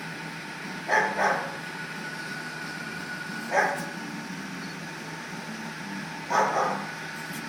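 A dog barking in short, separate barks: a quick pair about a second in, another about halfway, and one more near the end, over a steady low hum.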